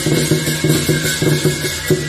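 Lion dance percussion band playing: a drum beating a fast, steady rhythm under clashing cymbals and a ringing gong.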